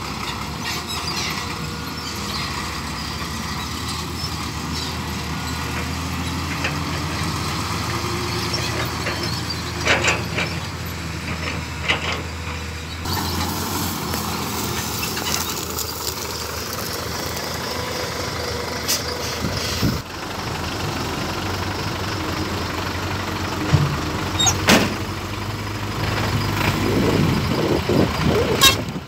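Diesel dump truck engines running steadily as the trucks drive over rough ground, with a few sharp knocks and rattles.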